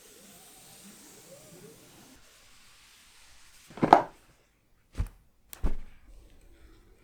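Unboxing handling of a card collection box and its packaging: faint rustling, one louder brief scrape about four seconds in, then two sharp knocks about half a second apart.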